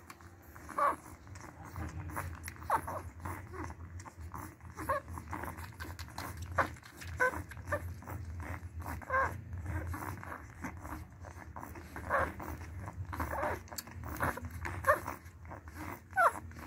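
Nursing puppies making short high squeaks and whimpers every second or two, with small wet suckling clicks in between.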